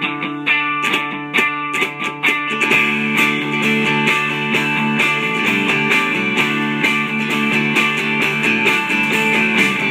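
Small rock band playing live: electric guitars strumming chords over bass guitar, with the drummer striking cymbals. The playing fills out about three seconds in.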